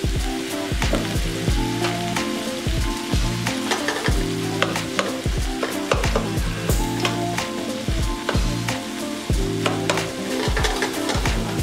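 Mackerel and onions sizzling in a frying pan, with tongs clicking and scraping as the fish is broken up, over background music with a steady beat.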